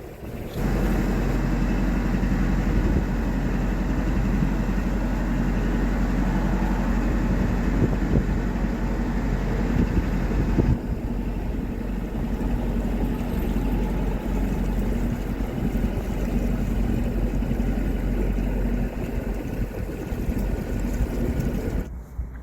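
Narrowboat diesel engine running steadily under way, a low even chugging hum. The higher hiss over it drops away abruptly about halfway through.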